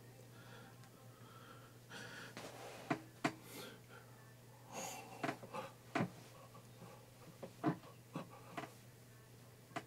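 Quiet room with a steady low hum, several faint sharp clicks or taps, and a few short breath or sniff sounds. No music is heard.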